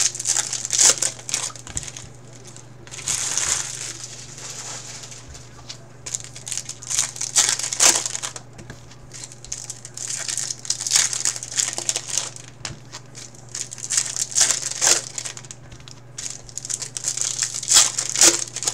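Plastic trading-card pack wrappers crinkling and a stack of cards being handled, in irregular bursts of rustling. A steady low hum runs underneath.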